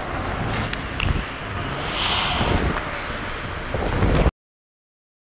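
Ice skates gliding and scraping on the rink, with wind rush on the skater's head-worn camera microphone; a couple of sharp clicks about a second in, and a brighter hiss of blades scraping the ice around two seconds in. The sound cuts off abruptly after about four seconds.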